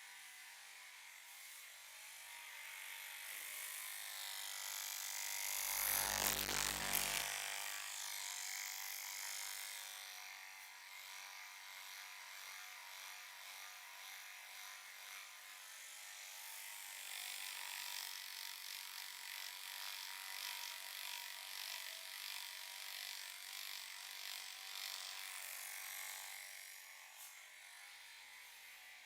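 Hands rubbing and kneading a scalp and hair: a steady, hissy rustle of friction, louder for a moment about six seconds in.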